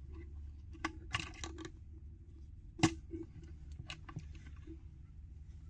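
Small plastic clicks and taps from the old plastic retaining tabs on a fog lamp housing as they are eased back by hand, a few in a quick cluster and one sharper click about three seconds in.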